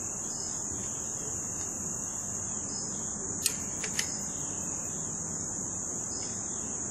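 Insects chirring outdoors in a steady, continuous high-pitched drone. About halfway through come three sharp clicks close together, the first the loudest.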